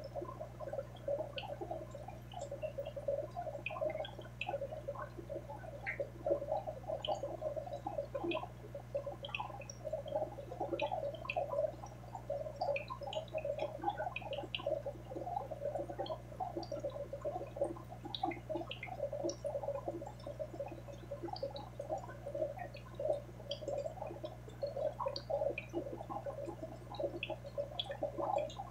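Continuous bubbling and trickling of aquarium water, with scattered small drips, over a steady low hum from the tank's pump.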